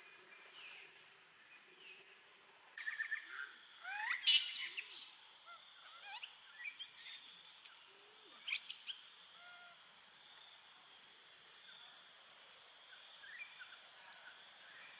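Outdoor insect chorus: a steady, high-pitched buzzing drone that switches on abruptly about three seconds in and holds steady. A few short, high, wavering animal calls cut through it, about four seconds in and again about seven seconds in.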